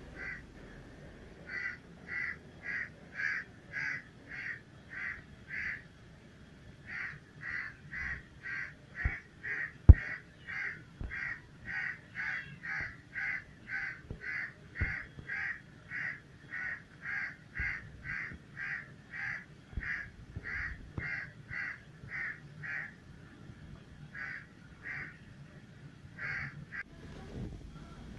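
A bird calling in a long, even run of short repeated calls, about two to three a second, with a short break about six seconds in and fewer calls near the end. A few sharp knocks land in the middle, the loudest about ten seconds in.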